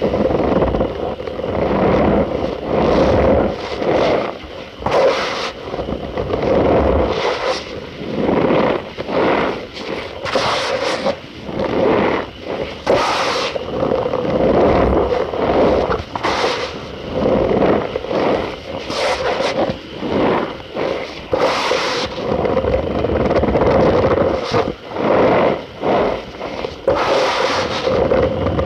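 Cornstarch powder being pressed and crushed, giving a run of squeaky crunching and scraping sounds in irregular bursts of different lengths.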